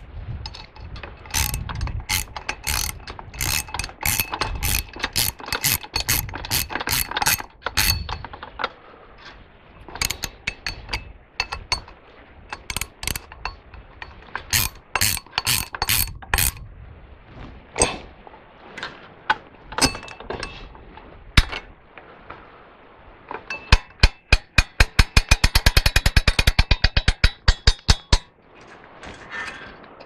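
Hand-crank winch's ratchet pawl clicking as the winch is cranked to wind in the saw-head lift cable. The clicks come in runs, the last one fast, about seven a second, near the end.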